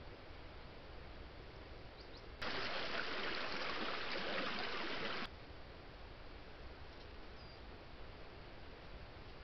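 Flowing stream water rushing steadily, cutting in abruptly about two and a half seconds in and cutting off just as suddenly about three seconds later, over a low steady background hiss.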